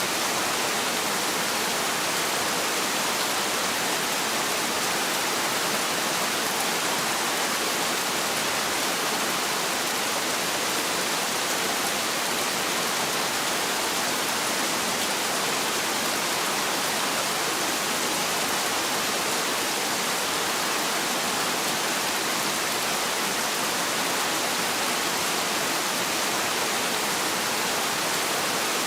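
Heavy rain falling steadily, an even, unbroken hiss with no thunder.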